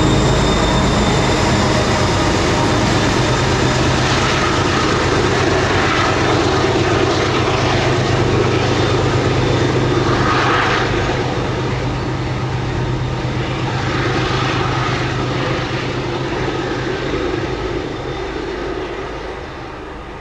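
Diesel pusher locomotive at the rear of a heavy freight train, its engine running under load as it climbs. It makes a steady low drone over the rumble of the wagons and fades away near the end as it draws off toward the tunnel.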